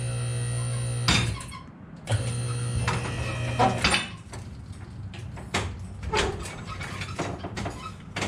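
BendPak QuickJack's electric hydraulic pump running in two short steady runs, about a second and then about two seconds, raising the truck. After that come scattered creaks and clicks from the lift and truck as they take the weight, which is really creaky.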